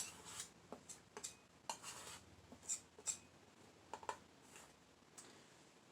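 Faint, scattered scrapes and light taps of a painting knife working oil paint, about a dozen short strokes.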